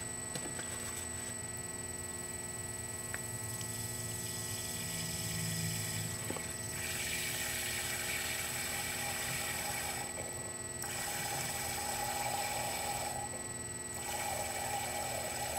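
Steady electrical hum. From about seven seconds in, methanol squeezed from an upturned plastic HEET bottle runs hissing into a glass measuring cup in three stretches, with short breaks between them.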